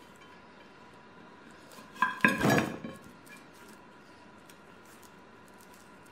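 A ceramic serving platter clinks sharply, then rattles briefly, about two seconds in, as a trussed raw chicken is shifted and turned on it.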